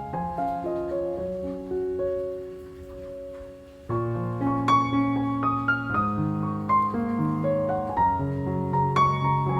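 Background piano music: a soft, slow passage that fades out, then fuller playing with bass notes from about four seconds in.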